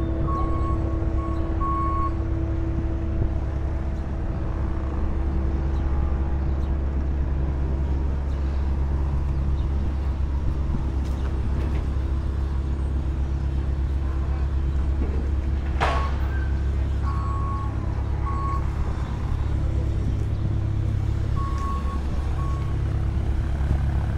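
A large engine running with a steady low rumble, with short high electronic beeps in a few brief groups. One sharp noise stands out about 16 s in.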